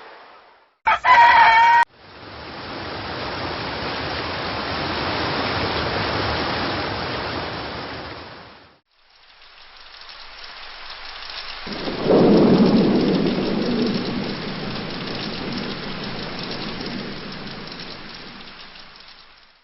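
About a second in, a rooster crows once, briefly and loudly. Then a steady hiss of rain swells and fades. After a short break there is more rain, and about halfway through a deep rumble of thunder sets in and slowly dies away.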